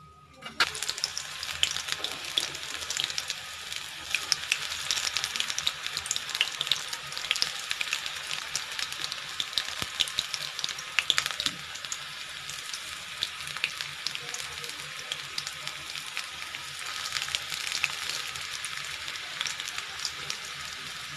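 Methi bhaji (fenugreek-leaf and gram-flour fritters) deep-frying in hot oil in a kadhai. The sizzling starts suddenly about half a second in as the fresh batch goes into the oil, then carries on as a steady crackling sizzle full of small pops.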